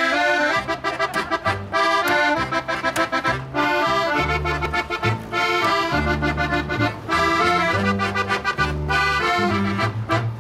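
Piano accordion playing a sea-song melody over low double bass notes, an instrumental opening with no singing.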